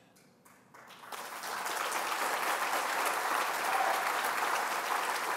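Audience applauding: a few scattered claps just under a second in, swelling within a second into steady applause.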